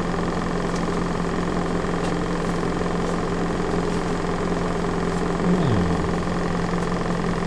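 Steady mechanical drone, engine-like and unchanging, with a short falling tone about five and a half seconds in.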